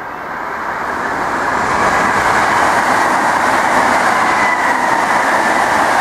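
Sanyo Electric Railway commuter train passing close by, the noise of its wheels on the rails growing over the first two seconds, then steady and loud.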